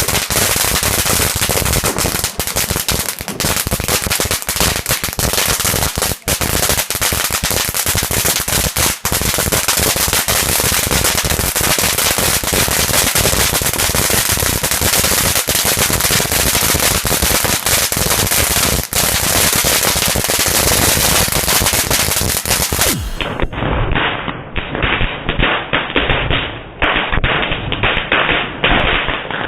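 Fireworks: a long string of firecrackers going off in a dense, rapid crackle of bangs. About 23 seconds in, the sound turns duller, with the bangs coming more spaced out and uneven.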